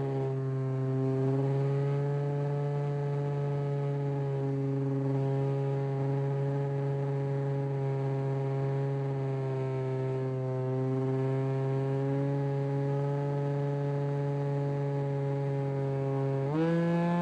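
RC model airplane's motor and propeller, recorded from a camera on the plane itself, running at a steady cruising pitch with slight rises and falls. Near the end the pitch jumps up sharply as the throttle is opened.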